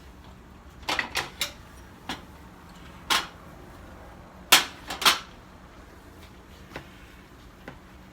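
Kitchenware clattering: about nine sharp clinks and knocks of hard dishes or utensils being set down and moved, the loudest a pair near the middle.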